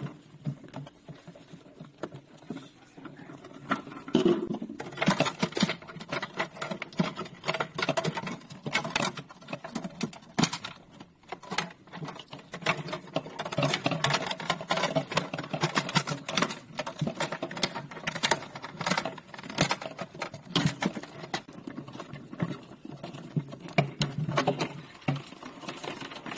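Handling noise from parts being disassembled by hand: rapid, irregular small clicks, taps and scrapes of plastic, coming in busier stretches.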